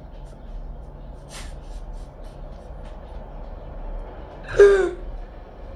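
A woman's short breath about a second in, then a single loud voiced gasp near the end, its pitch dropping slightly.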